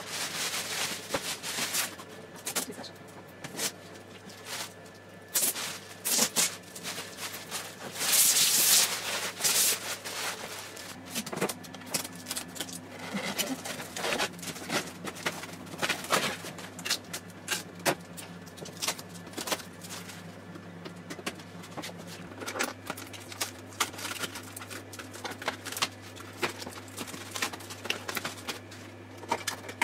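Plastic wrap rustling and crinkling as it is pulled off a 3D printer, then foam packing being pulled out of the machine, with many small handling clicks and knocks. The loudest rustle comes about eight seconds in.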